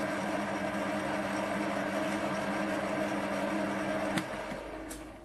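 A machine's electric motor running steadily with a hum over a whirring hiss, switched off with a click about four seconds in and winding down, followed by another faint click.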